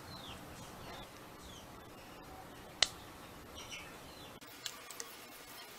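A few faint, short, falling bird chirps over low background hiss, with one sharp click about three seconds in and a couple of lighter clicks near the end as a small plastic magnifier lens is handled.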